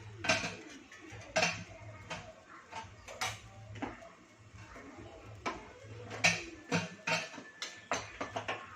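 Metal kitchen utensils clinking and clattering, with a dozen or so sharp knocks at irregular intervals over a low steady hum.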